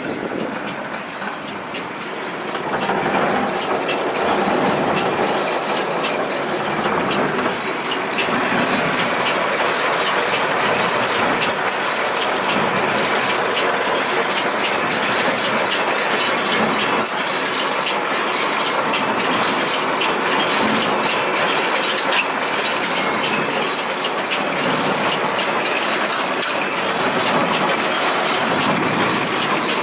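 Case IH 8575 large square baler running, a steady dense mechanical clatter of gears and chains with many small clicks. It gets louder about three seconds in.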